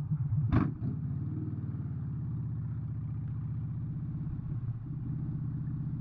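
Motorcycle engine running steadily at road speed with an even low exhaust pulse. There is one short sharp knock about half a second in.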